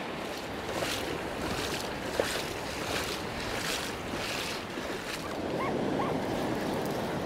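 Low surf breaking and washing over a flat sandy beach: a steady hiss of moving water, with wind buffeting the microphone.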